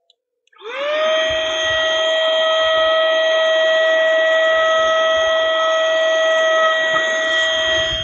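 Small electric motor of a handheld cordless 3-in-1 air duster and vacuum cleaner (PeroBuno HL103B) switching on about half a second in, spinning up quickly to a steady high whine over a rush of air as it vacuums dust from a computer case vent.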